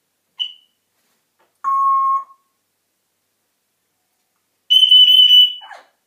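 African grey parrot whistling: a short chirp, then a lower steady whistle held about half a second, then a loud higher whistle held for most of a second that ends in a quick falling note.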